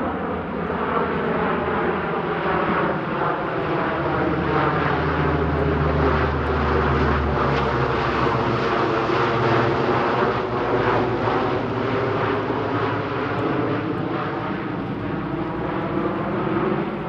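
A C-130H Hercules's four-engine turboprop drone as the aircraft flies. It sets in abruptly, and its pitch sinks slowly and then rises again near the end.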